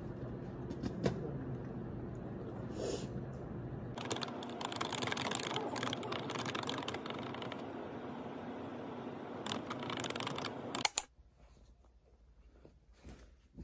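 Office room hum with soft clicking and rustling handling sounds, busier from about four seconds in. Two sharp clicks come near the end, then the sound drops to near silence.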